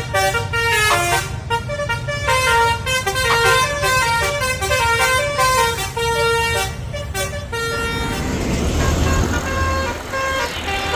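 Basuri multi-tone 'telolet' bus horn playing a tune of quickly changing notes. About eight seconds in, a bus engine's rumble comes up, and the horn notes carry on more faintly under it.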